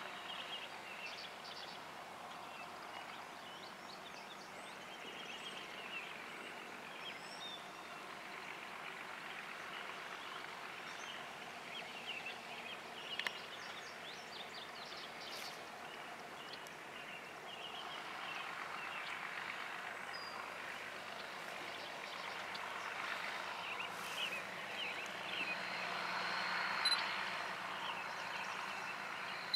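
International 3588 2+2 tractor's 466 cubic-inch six-cylinder diesel running steadily at a distance while the hydraulics lift and fold the Kinze 2300 planter into transport position, with a few light clunks. Birds chirp throughout.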